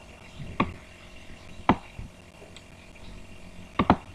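Separate sharp clicks of computer keyboard keys: one about half a second in, another a second later, then a quick pair near the end.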